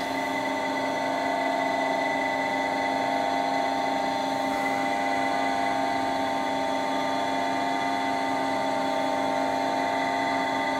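Milling machine motor running steadily at a constant speed, with a fixed whine and hum and no change in load.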